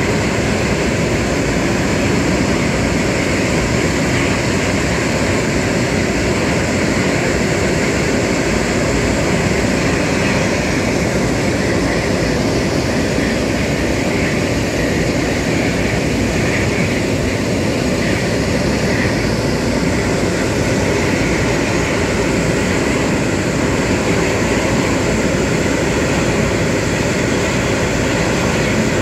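Airbus A380's Rolls-Royce Trent 900 turbofan engines running steadily at low power close by: a loud, even rush of jet noise.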